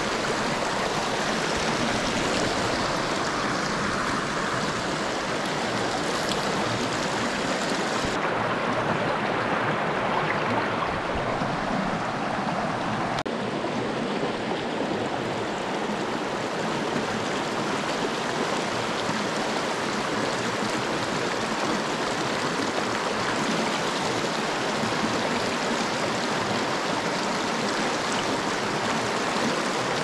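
Rushing water of a small rocky stream spilling over a low ledge and through riffles, a steady even wash. Its tone dulls a little about eight seconds in and again around thirteen seconds.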